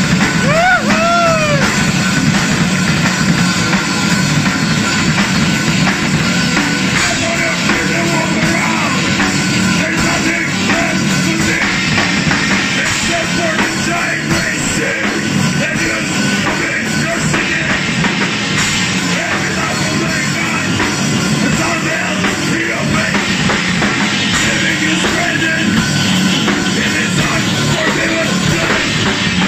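Live rock band playing a heavy number: two electric guitars, bass guitar and drum kit together, loud and dense.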